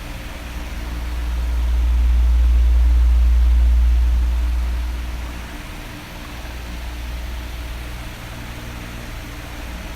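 Electric fan running: a steady airy whoosh over a low motor hum. The low rumble swells and fades once, between about one and five seconds in.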